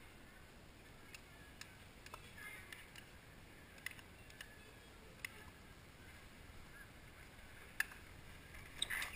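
A handful of sharp, irregular clicks of a metal spoon against a metal cup, about seven over several seconds, with a quicker cluster of clicks and knocks near the end.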